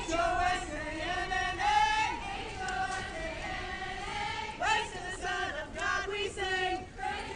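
A choir singing, with long held notes that change every second or so.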